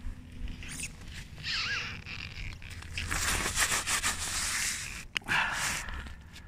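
A winter boot scraping and pushing on thin canal ice, crunching it from about three seconds in, with a sharp crack just after five seconds as a sheet of ice breaks.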